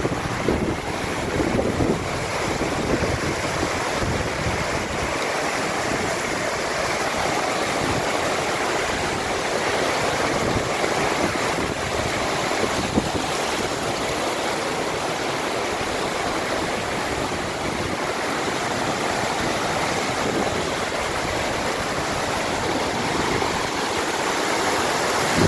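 Mountain stream rushing over rocks in small cascades, a steady even rush of water.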